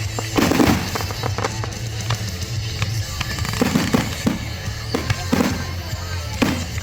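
Fireworks bursting one after another in a finale barrage, sharp bangs with echoing tails, over music with a steady bass.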